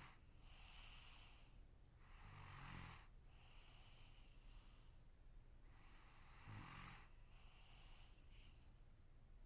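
A sleeping person snoring quietly: two snores with a low buzzing vibration, about four seconds apart. Each is followed by a softer breathing-out sound.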